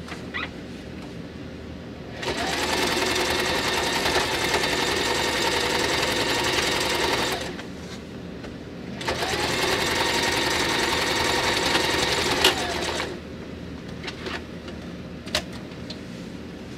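Singer sewing machine stitching upholstery cloth in two runs of a few seconds each, the motor winding up at the start of each run and winding down as it stops. A few light clicks of handling follow near the end.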